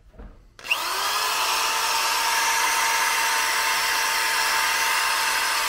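Electric drill fitted with a wire wheel spinning up about half a second in, its pitch rising and then holding steady as it runs, the wire wheel scrubbing loose rust off an engine block.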